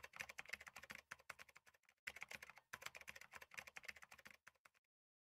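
Rapid, dense keyboard-typing clicks, a sound effect for text being typed out on screen, with a brief break about two seconds in; the typing stops about half a second before the end.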